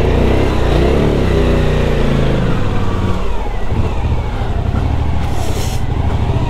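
Suzuki motorcycle engine at walking pace. In the first couple of seconds the throttle is opened and eased, so the pitch rises and falls, then the engine runs steadily at a low pitch.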